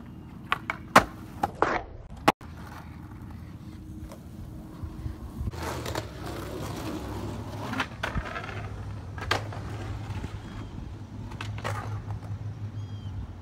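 Skateboard on concrete: a quick series of sharp clacks from the board's tail, trucks and wheels striking a ledge and the ground in the first two seconds, the loudest about a second in. After that, wheels rolling with scattered knocks.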